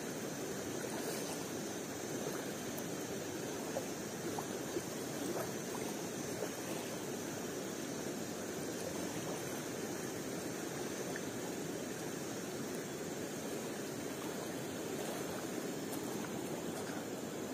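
A stream flowing steadily, an even rush of running water, with a few faint ticks.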